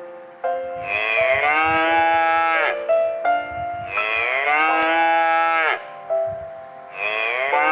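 Cow mooing: three long moos, each about two seconds, with a pause of a little over a second between them.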